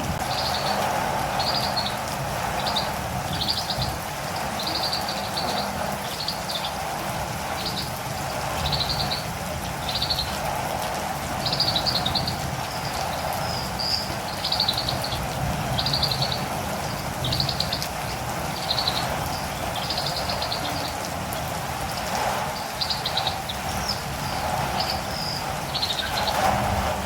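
Catirumbava (olive-green tanager) calling: short, high, trilled notes repeated about once a second, over a steady hiss of rain.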